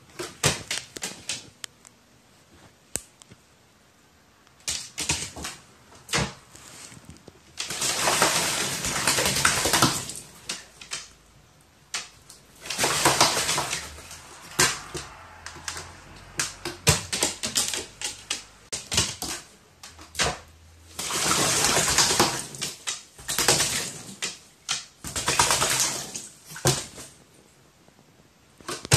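Pet crow bathing in a water dish: several bouts of splashing, the longest about two seconds, with sharp clicks and taps between them.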